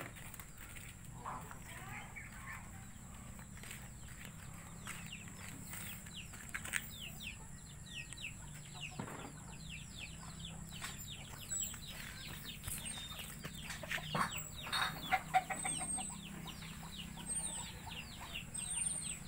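Chickens clucking and peeping: many short calls that fall quickly in pitch, growing busier after about six seconds.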